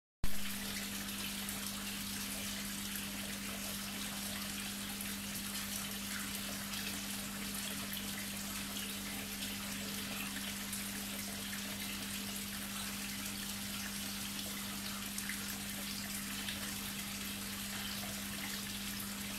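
Koi pond water trickling and splashing steadily, over a constant low hum. A short bump comes right at the start.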